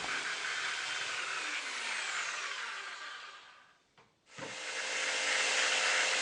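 Bosch GST Professional jigsaw running through metal-covered chipboard flooring; its motor winds down in pitch and stops about four seconds in, then starts up again and runs steadily.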